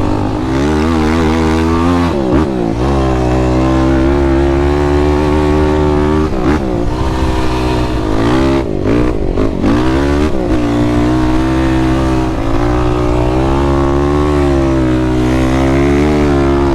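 450 sport quad's single-cylinder four-stroke engine running under load while riding, its pitch dropping briefly and climbing again a few times as the throttle is eased off and reopened.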